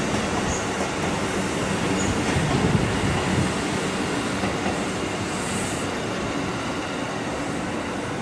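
JR East E235 series 1000 electric multiple unit passing, its wheels running steadily over the rails.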